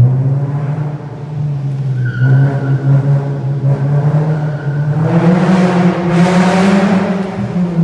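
Alfa Romeo 147 Ti engine pulling through a stainless steel 4-into-1 manifold, sports catalytic converter and stainless cat-back exhaust, its note rising and growing louder and fuller about five seconds in, echoing off the concrete of a multi-storey car park.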